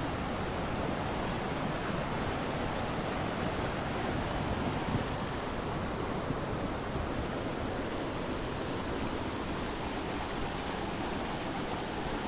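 Steady rushing of a fast-flowing stream fed by a waterfall, an even, unbroken wash of water sound.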